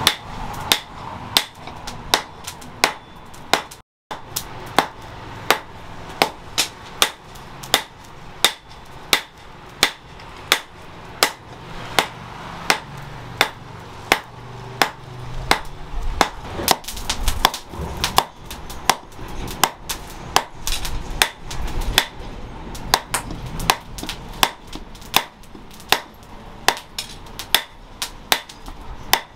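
Hand hammer striking red-hot steel from a broken chainsaw bar on a cylindrical post anvil: sharp ringing blows at a steady pace of about two a second, broken once by a brief gap about four seconds in.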